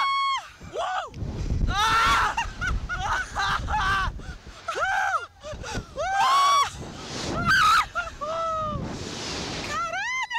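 Two thrill-ride riders screaming and shrieking with laughter as they are flung on a reverse-bungee slingshot ride: a string of loud, high-pitched cries that rise and fall in pitch. Now and then a low rush of wind blows over the microphone.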